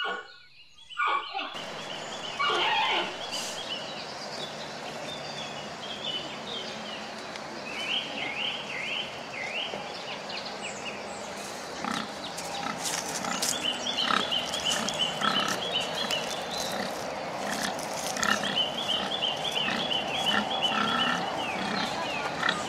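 Pigs grunting in short repeated grunts over a steady background hiss, with strings of high, quickly repeated chirps at times.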